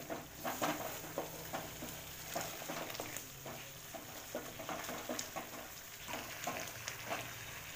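Thick masala gravy sizzling in an aluminium kadai while a wooden spatula stirs and scrapes through it, with many small irregular ticks and a few louder strokes near the start.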